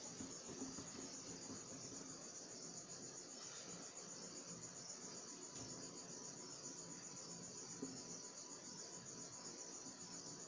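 A cricket trilling steadily in the background, one high, unbroken sound that does not change.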